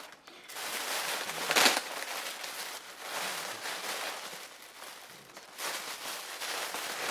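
Packing material being pulled apart and handled, rustling and crackling unevenly, with one sharper crackle about a second and a half in.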